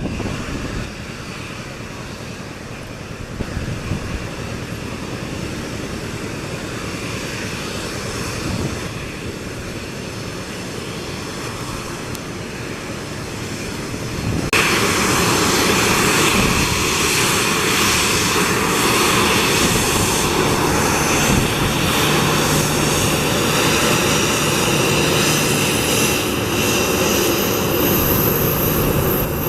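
Boeing 737-800's CFM56 jet engines running as a steady rush of engine noise, which turns suddenly louder and brighter about halfway through and stays there. A faint high whine climbs near the end.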